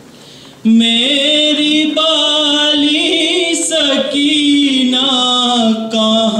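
A man's voice chanting an Urdu noha, a Muharram lament, without instruments. It starts after a short lull about half a second in and holds long, wavering notes.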